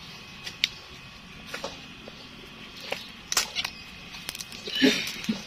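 Young bamboo shoots snapped off by hand at the base of a clump: a string of sharp popping snaps, about eight, the loudest a fuller crack near the end, with some rustling of dry sheaths and leaves.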